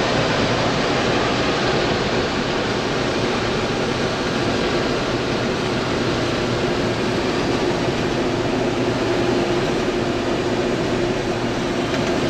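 Case IH combine harvester running steadily, cutting a test strip of wheat.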